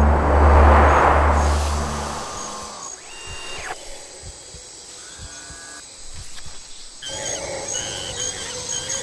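A deep, sustained musical drone under a swelling whoosh, cutting off about two seconds in. Then quieter jungle ambience with birds chirping and warbling, busier near the end.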